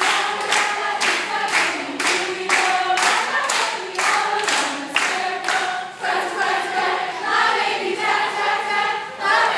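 Children's choir singing a dance song together, with sharp beats about twice a second that fade out about six seconds in and return near the end.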